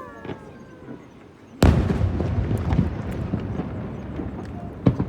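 Fireworks over open water: a loud shell burst about a second and a half in, followed by a couple of seconds of crackling, then another sharp bang near the end.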